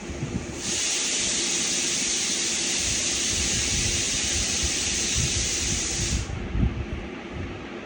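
A steady, high hiss that starts abruptly about half a second in and cuts off sharply about five and a half seconds later.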